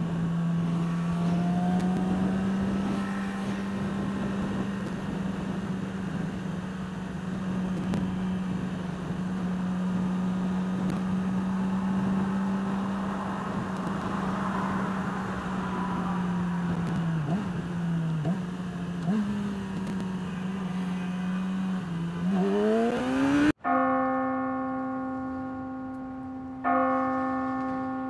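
Sport motorcycle engine running steadily at highway speed under rushing wind, then rising in pitch as it accelerates near the end. The sound cuts off abruptly to a struck bell-like tone that rings and fades, and is struck again about three seconds later.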